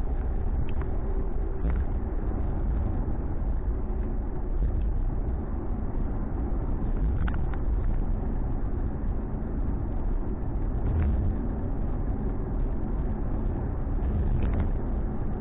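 Ford Mustang cabin while driving: a steady low rumble of engine and road noise with tyre hiss, and a few faint ticks scattered through it.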